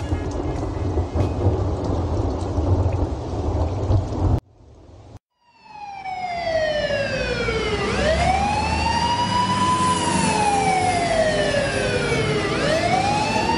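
Rain with a low rumble of thunder, cut off abruptly about four seconds in. After a second or so of silence, a siren starts wailing, sliding slowly down in pitch and back up in cycles of about five seconds.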